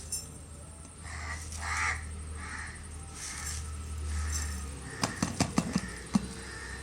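Crows cawing several times in the background, short harsh calls over a low hum, followed about five seconds in by a quick cluster of sharp clicks and knocks.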